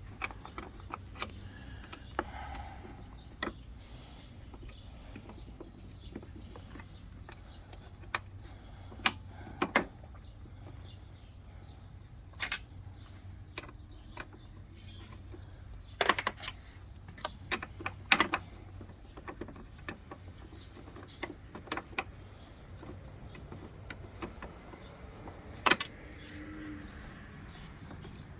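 Scattered sharp clicks and knocks of small hand tools on metal as fasteners of a Jeep Wrangler hood latch are worked in, irregular and spaced out, over a steady low hum.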